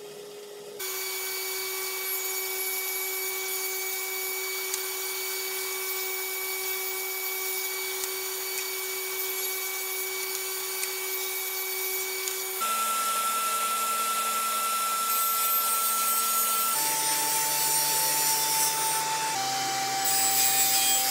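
Table saw running and cutting grooves along the bottom edges of drawer sides, to take a 1/4 inch hardboard bottom. It is a steady whine that starts about a second in, and its pitch jumps abruptly about two-thirds of the way through and twice more near the end.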